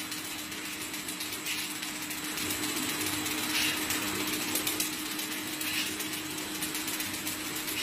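Air bubble film making machine running, winding bubble wrap onto a roll: a steady mechanical noise with one constant hum.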